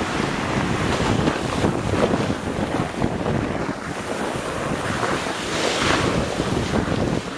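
Wind buffeting the camera microphone: a rough, uneven rumble and rush with no tones.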